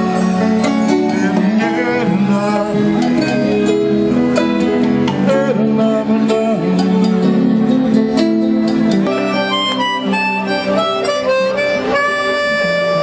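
Music: an instrumental passage of a song, a harmonica playing held notes over a strummed acoustic guitar.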